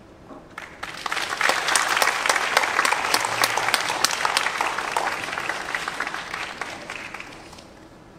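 Audience applauding after a tango piece ends, starting about a second in, swelling and then dying away near the end.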